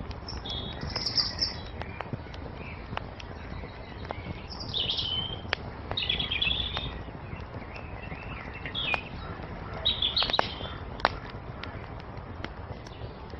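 Wood fire crackling, with sharp pops scattered through and a low steady rumble beneath. Songbirds chirp and twitter in short bursts several times over it.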